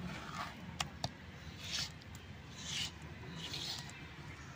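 A hand scraping and wiping ground rice-and-lentil paste across a shil grinding stone to gather it up, heard as three separate rasping strokes, after two light clicks about a second in.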